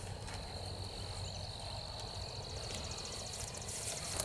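A steady high-pitched insect trill, with a fast fine ticking high above it in the middle, over a low rumble.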